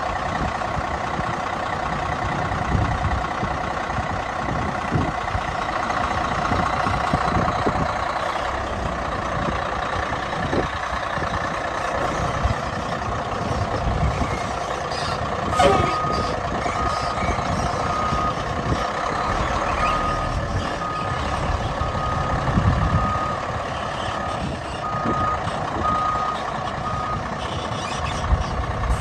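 Heavy truck engine running steadily. From about halfway through, a vehicle's backup alarm beeps about once a second, stopping shortly before the end.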